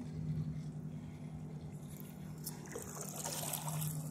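Water lapping and trickling against the hull of a canoe under way, growing busier about halfway through, over a steady low hum.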